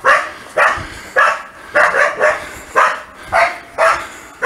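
A dog barking repeatedly and loudly, about two barks a second.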